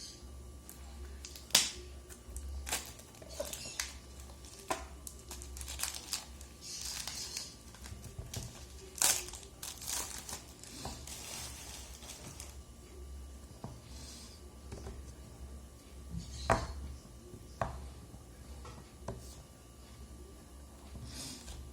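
Packaging being handled: crinkling and tearing with scattered sharp clicks and taps, over a faint steady low hum.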